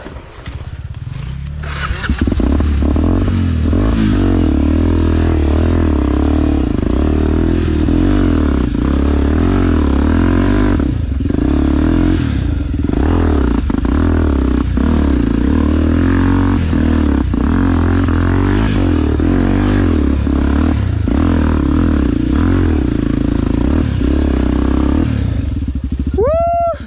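Dirt bike engine running hard under load on a rough forest trail, with knocks and clatter from branches and stones hitting the bike. It picks up about two seconds in, and near the end a quick throttle blip rises and falls in pitch.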